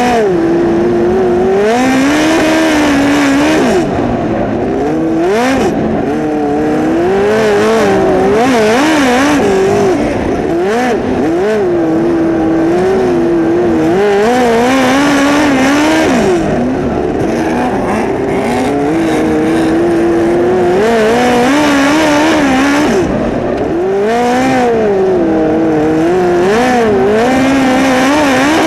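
Midget race car engine heard from the cockpit at racing revs, its pitch climbing and falling over and over as the driver accelerates out of the turns and lifts into them, over a rush of wind and dirt-track noise.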